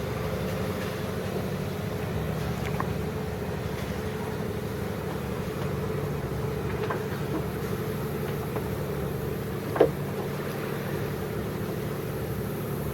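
Sailboat's engine running steadily under way, an even hum. A single sharp knock sounds about ten seconds in.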